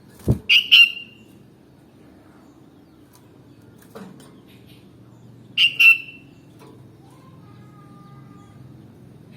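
Sooty-headed bulbul (kutilang) giving two short bursts of sharp, loud calls about five seconds apart; the first burst opens with a thump.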